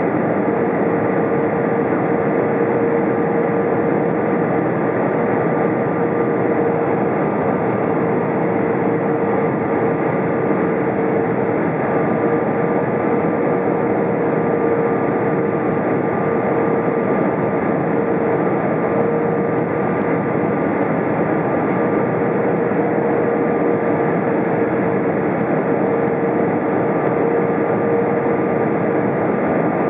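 Airbus A320 cabin noise on final approach: the steady rush of engines and airflow heard from a window seat over the wing, with a constant hum running through it.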